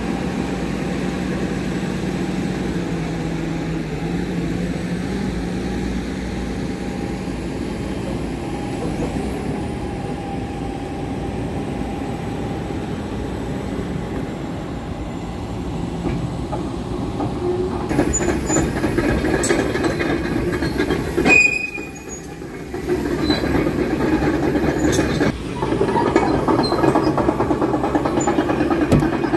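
Scania R tractor unit's diesel engine idling steadily. About two-thirds of the way in the sound grows louder and rougher, with a brief drop of a second or so.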